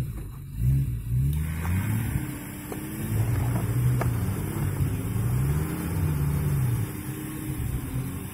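Off-road vehicle engine revving up and down repeatedly, its pitch rising and falling every second or two, as it works to pull a vehicle free.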